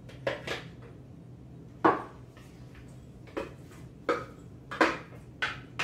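Kitchen clatter from emptying ground turkey out of a plastic food processor bowl into a stainless steel mixing bowl: a wooden spoon and the processor bowl knocking, about seven sharp knocks, the loudest about two seconds in.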